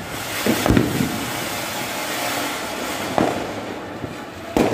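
Ground firework fountain hissing steadily as it throws sparks, with several sharp firecracker bangs: two close together about half a second in, one about three seconds in and one near the end.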